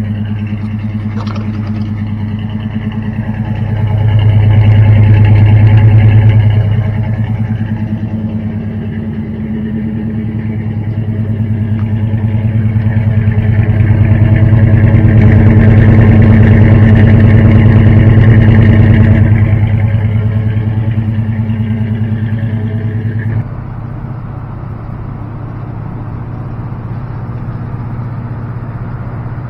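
Chevrolet square-body pickup's engine idling, heard at its tailpipe as a steady low exhaust drone that swells louder twice for a few seconds. About three-quarters of the way through it cuts to a quieter, even engine and road drone heard from inside the cab at highway speed.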